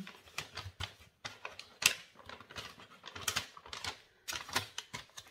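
Small kraft-paper gift bag being opened and handled, crinkling and crackling in quick irregular clicks.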